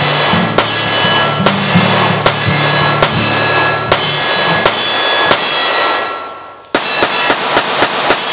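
Remington R51 9mm semi-automatic pistol fired repeatedly, shots about two a second. After a short break, a faster string of shots comes near the end.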